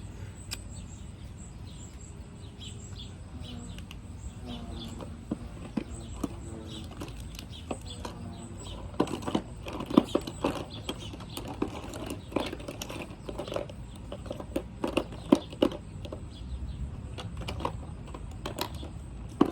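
Small plastic clicks and taps from handling a lipstick tube and lip-gloss packaging, scattered and sharpest in the second half, over a low steady hum.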